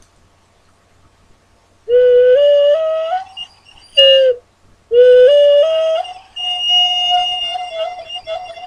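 Six-hole ocarina played as a rising scale of about five notes, a short single note, the same rising scale again, then a long, slightly wavering top note. The player is testing its tuning with tape partly covering a hole.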